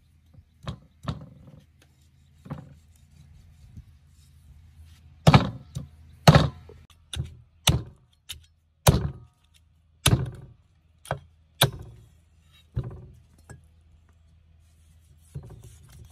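Heavy cleaver chopping into a raw cow's foot on a thick wooden chopping block, splitting the hoof. About fifteen irregularly spaced chops, the heaviest in the middle.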